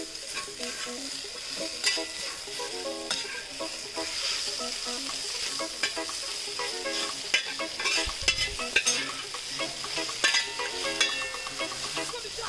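A steel spatula stirring and scraping shredded chicken and masala around a wide metal pan while it sizzles in oil. The spatula clicks against the pan again and again.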